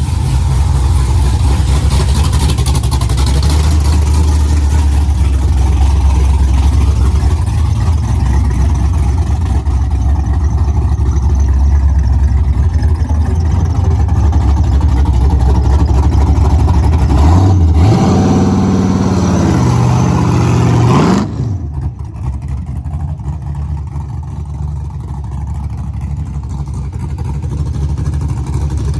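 GM G-body car's engine running hard for a burnout attempt on a transmission said to be bad. About 17 seconds in it revs up and down in pitch, then drops suddenly to a quieter idle.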